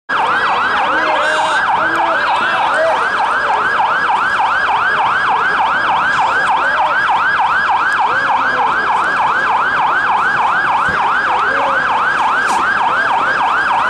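Siren in a fast yelp, its pitch sweeping up and down about three times a second, loud and unbroken.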